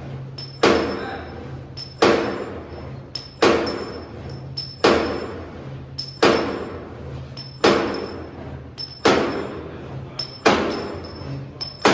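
CNC wire straightening and cutting machine for 12 mm wire running in cycles: a sharp metallic bang with a ringing decay about every 1.4 seconds, eight times, each with a small click just before it. A low motor hum comes and goes between the bangs.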